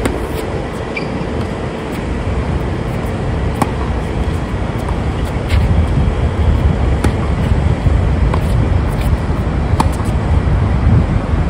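A tennis rally: sharp racket-on-ball hits and bounces sound as short cracks, roughly every one and a half seconds, over a steady low rumble of wind on the microphone.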